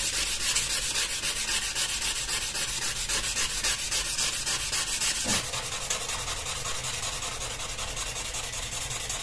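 Sanding or rubbing in quick, even back-and-forth strokes, a steady scratchy hiss, on a knife being restored.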